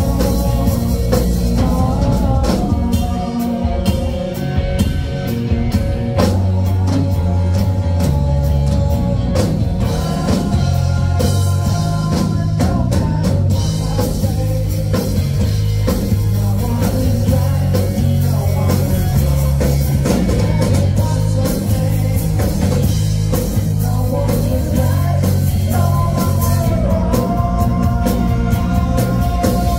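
Rock band playing live: distorted electric guitars over a drum kit, with a steady driving beat and sustained guitar notes.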